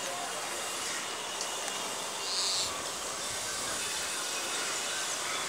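Steady outdoor background hiss on a rooftop, with one short high chirp about two and a half seconds in.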